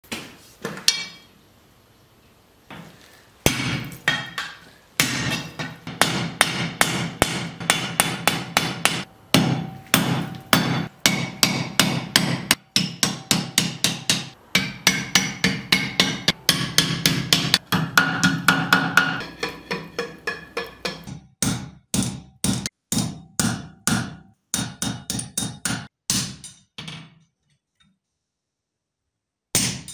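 Blacksmith's hand hammer striking a red-hot steel bar on an anvil in runs of about three blows a second, each blow ringing, with short pauses between the runs.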